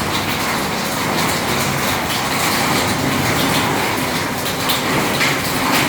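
Heavy rain drumming steadily on a roof above an open, unceilinged upper floor: a dense, even hiss and patter, pretty loud.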